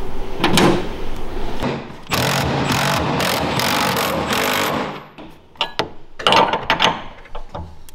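Some knocks of handling, then a cordless impact driver with a 19mm socket hammering a transom mounting-bolt nut tight for about three seconds. After it, a few metal clicks and scrapes of a wrench and socket on the bolts.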